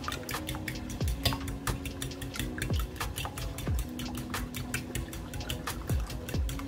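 Fork whisking raw eggs in a bowl: a rapid, continuous clicking of the tines against the side of the bowl, over faint background music.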